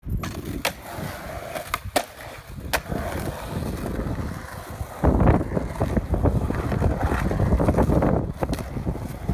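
Skateboard on a concrete bowl: a few sharp clacks of the board in the first three seconds, then urethane wheels rolling over the concrete, much louder from about five seconds in as the board carves through the bowl.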